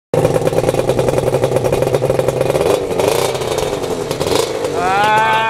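Suzuki RG250's two-stroke parallel-twin engine running steadily.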